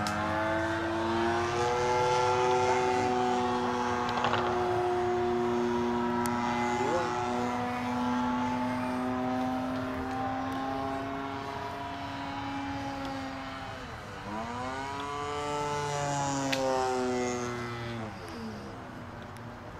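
Gasoline engine and propeller of a giant-scale RC Piper J-3 Cub model in flight, running with a steady drone whose pitch drifts slowly. About fourteen seconds in the pitch drops sharply and climbs back, and it dips again near the end.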